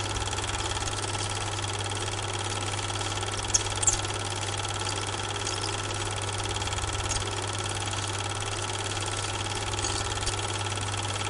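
Film projector running: a steady motor hum and whir with a fine, rapid mechanical clatter, and two short clicks a little under four seconds in. The film itself has no soundtrack.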